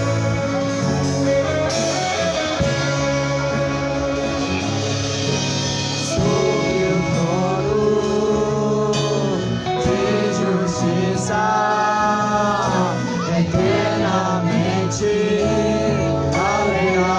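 Gospel song with a choir singing over instrumental accompaniment. Sustained chords carry the first few seconds, and the voices come in stronger about six seconds in.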